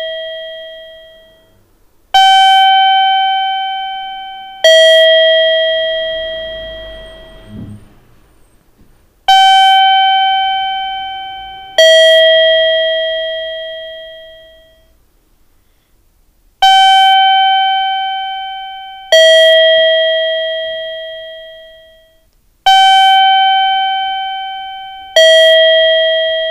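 Two-tone electronic 'pin-pon' chime, a higher note then a lower one about two and a half seconds later, each ringing out and fading, repeated four times. This is the guide chime sounded at Japanese station ticket gates to lead visually impaired passengers to them. A faint low rumble comes about seven seconds in.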